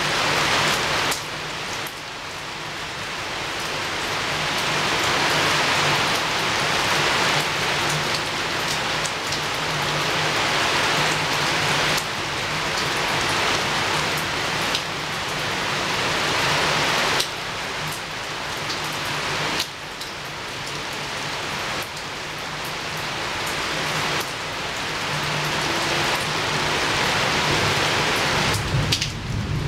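Heavy rain pouring against a window, a dense steady hiss that slowly swells and then drops off abruptly several times. A low rumble of thunder starts right at the end.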